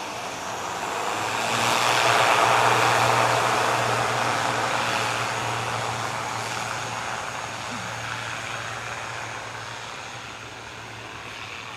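ATR 72-600 turboprop's engines and propellers running on the ground: a steady low propeller hum under a rushing engine noise that swells about two seconds in and then slowly fades.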